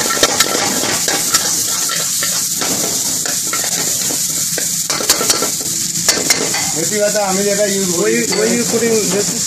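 Chicken pieces sizzling in a hot steel wok over a gas flame while a metal ladle stirs and tosses them, scraping and clacking against the wok.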